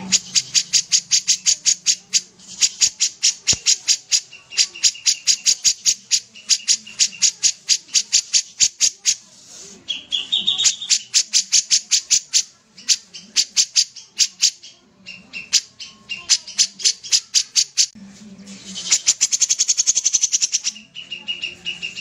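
Caged kapas tembak bulbul singing hard: long runs of sharp, rapid repeated notes, about six a second, broken by short pauses. Near the end comes a faster rattling run.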